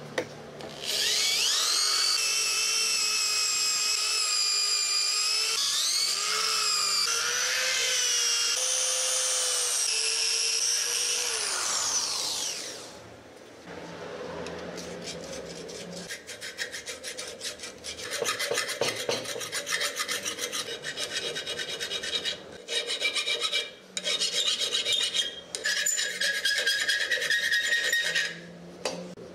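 Rusty steel being abraded in a bench vise. First comes about eleven seconds of continuous scraping with a squeal that wavers in pitch. After a short drop, quick rhythmic scraping strokes come in bursts with brief gaps.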